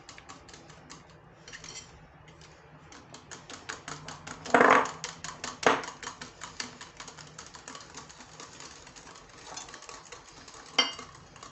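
Wire whisk beating against a ceramic bowl in rapid ticking strokes, with a few louder knocks. This is an egg, sugar and cornstarch mixture being whisked as hot lemon juice is tempered into it so the eggs don't cook.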